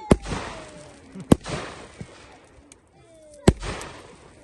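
Fireworks going off: three sharp bangs, one right at the start, one about a second in and the loudest about three and a half seconds in, each followed by a fading crackle, with a smaller pop in between.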